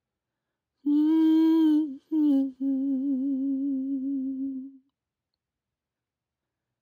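A woman humming a short wordless tune, starting about a second in: three notes, each a little lower than the last, the third held for about two seconds with a wavering vibrato before it stops.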